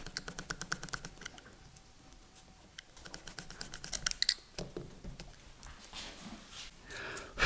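Knife trimming the excess tails of a string puncture plug flush with a motorcycle tyre's tread. There are two bursts of quick small clicks: one at the start and one around three to four seconds in.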